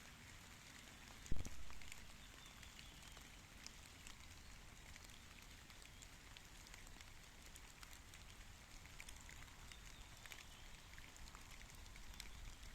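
Rain falling, a steady patter with many separate drops ticking. About a second in there is a single loud, low thump that dies away quickly.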